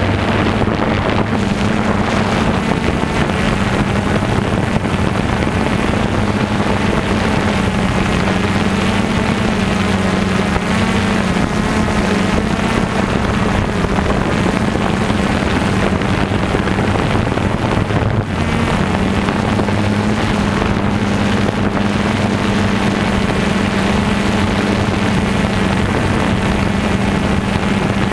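Quadcopter drone's electric motors and propellers running in flight, heard close from the camera mounted on the drone: a loud, steady hum that shifts slightly in pitch now and then, with wind rushing over the microphone.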